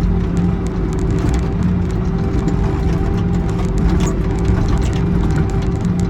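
Excavator's diesel engine running steadily under work, with scattered light clanks from the machine.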